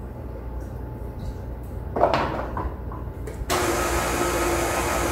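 Electric tilt-head stand mixer switched on about three and a half seconds in, its motor running at a steady speed with an even whir and hum as it beats a farmer's-cheese batter. A short rattle comes a little earlier, about two seconds in.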